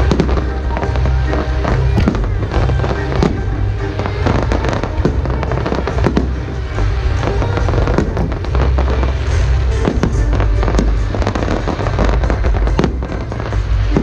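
Aerial fireworks going off in many sharp bangs and crackles, over loud music with a heavy bass played with the display.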